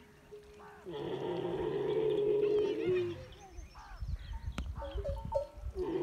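Dromedary camel groaning: one long, rough call about a second in that lasts about two seconds, followed by a lower rumbling.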